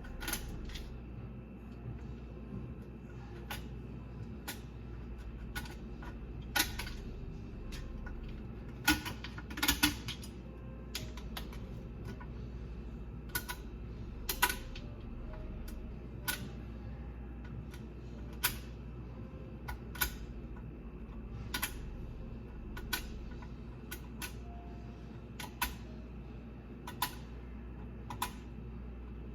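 Irregular sharp clicks and clinks, one every second or two with a quick cluster near the middle, from hand tools working at a garbage disposal that aquarium rocks have jammed. A steady low hum runs underneath.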